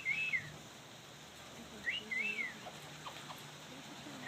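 Parrots giving short whistled chirps, each rising then falling in pitch, in two brief pairs: one at the start and another about two seconds in.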